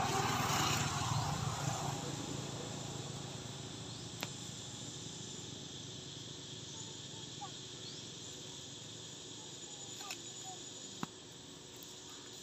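A passing motorbike fades away over the first two seconds, leaving a steady drone of insects with a few faint chirps and a couple of sharp clicks.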